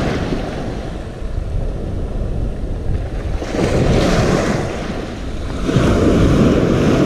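Sea waves breaking and washing around the shoreline, surging loudest about three and a half seconds in and again near the end, with wind buffeting the microphone.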